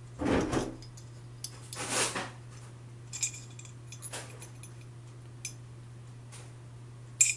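Small metal parts being handled: an aluminium box-section motor bracket, a 540 motor and M3 cap-head screws knock twice in the first two seconds, then give a few short, sharp metallic clinks, the loudest just before the end. A steady low hum runs underneath.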